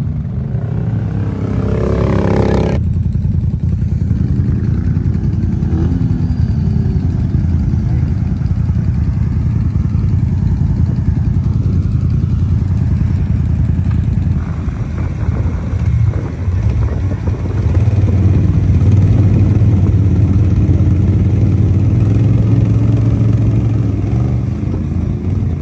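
Can-Am Outlander ATV engine revving under heavy load while the quad is bogged down in deep mud. It runs continuously, grows louder for several seconds in the second half, then eases near the end.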